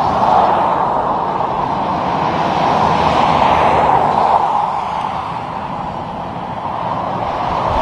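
Highway traffic: a steady rush of tyre and engine noise from passing cars and tractor-trailers, swelling about three to four seconds in, easing a little and building again near the end.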